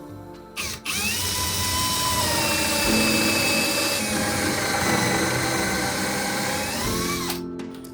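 Power drill running steadily for about six seconds, its motor whine rising as it spins up and falling as it winds down near the end.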